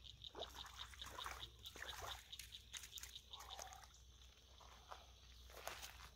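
Faint water splashing and sloshing from a hooked channel catfish being played close in. A rapid, high, pulsing chirp carries on in the background.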